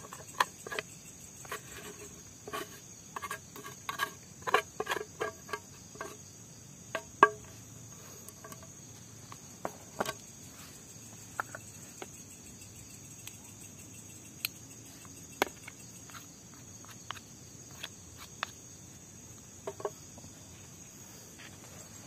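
Spoon scraping and knocking against a metal camping cook pot while fried rice is served out of it: a quick run of ringing clinks over the first several seconds, then occasional single clicks of the spoon in the plastic bowl. A steady high chorus of crickets runs underneath.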